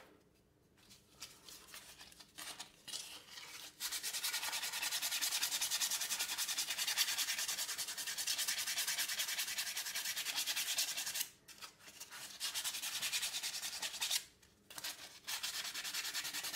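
Hand sanding of a wooden knife handle with 120-grit sandpaper: quick, even back-and-forth scratching strokes, smoothing and rounding the handle. A few light scrapes first, then a long steady spell from about four seconds in, broken by two short pauses near the end.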